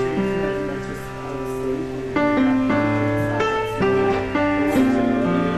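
Background music led by piano or keyboard, playing sustained chords and a slow melody.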